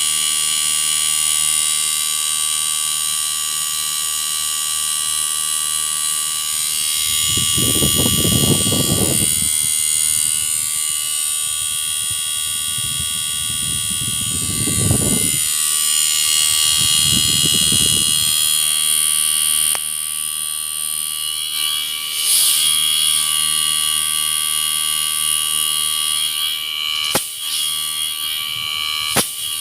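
Panasonic inverter split air conditioner's compressor and fan running continuously on test, with a steady high-pitched electronic whine from the inverter drive over a low hum. The compressor now runs without cutting out after a second, the defective IPM (power module) having been replaced. Three spells of low rushing noise come in the middle, and two sharp clicks near the end.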